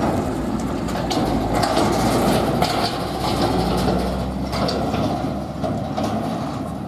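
Forage harvester and tractor engines running steadily while chopping grass silage, with scattered knocks and rattles; the noise eases a little near the end.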